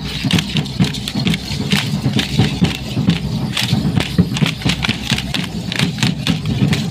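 Rhythmic clattering of a troupe of matachín dancers: their fringed costumes rattle and hand-held sticks click in time with the dance steps, about three beats a second, over a steady low background sound.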